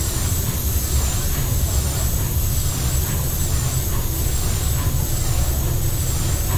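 The 1912 paddle steamer Schönbrunn's steam engine running at half speed: a loud, steady low rumble of the working engine with a regular rhythmic beat from its moving rods and cranks.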